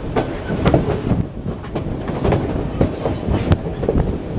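Passenger train running on the rails, heard from on board: a steady low rumble with irregular clanks from the wheels over the rail joints.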